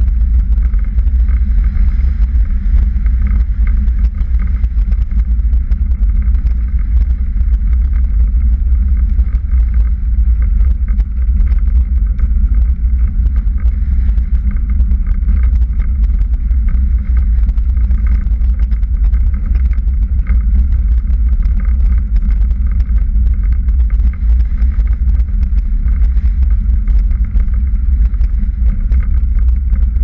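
Strong gusty wind buffeting the microphone in a low, loud, continuous rush, over the steady rolling and drivetrain hum of a Strada velomobile riding at speed.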